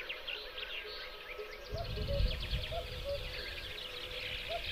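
Spring birdsong outdoors: several small birds singing quick high chirps and trills, with a short lower note repeated about every half second. A low rumble starts about two seconds in.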